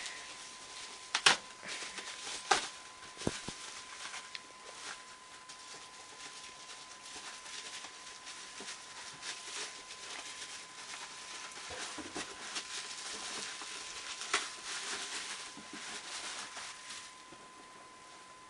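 Rustling and handling noise with several sharp clicks, the loudest about a second in, over a faint steady high tone.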